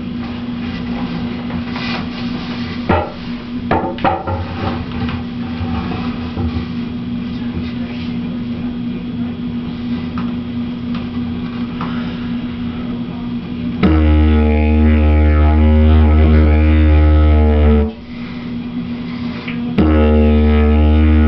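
Didgeridoo playing a loud, steady, deep drone rich in overtones. It starts about two-thirds of the way in, breaks off for a couple of seconds near the end, then resumes. Before it starts there is a quieter steady hum with a few knocks.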